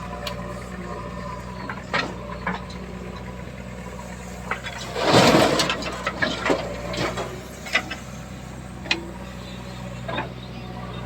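Diesel engine of a tractor or backhoe loader idling steadily, with several sharp knocks and clanks and a loud noisy burst lasting about a second around the middle.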